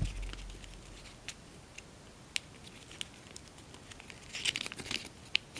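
Tissue foil paper crinkling and crackling between the fingers as it is pressed and folded, in scattered small crackles with a denser run near the end.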